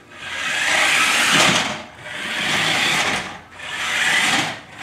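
Remote-control toy Chevy Camaro ZL1's small electric motor whirring, with its tyres rolling on a hardwood floor. It comes in three surges of a second or so each as the car is driven in short bursts.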